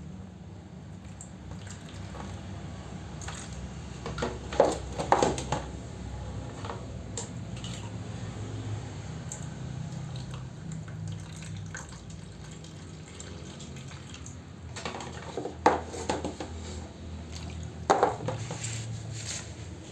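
Water splashing and dripping, with three short bursts of clattering knocks over a steady low hum.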